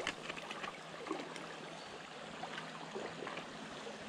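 Shallow stream water running steadily over stones, with a few short splashes or knocks in the first second and a half.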